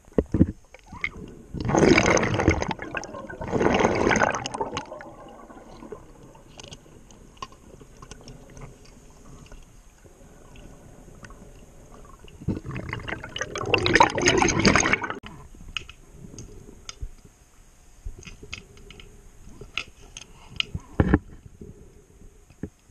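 Scuba diver breathing through a regulator underwater, heard from the diver's own camera: rushing, bubbling exhalations, two short ones a couple of seconds in and a longer one in the middle, with faint clicks between breaths and a sharp knock near the end.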